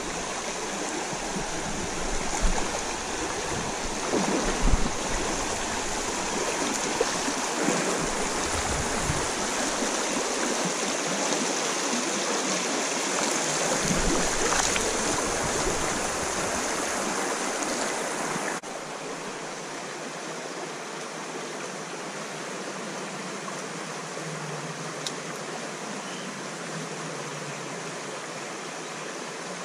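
Shallow creek water running and rippling over rocks: a steady rush, with a few dull bumps in the first half. About two-thirds of the way through it drops suddenly to a quieter rush of the same water.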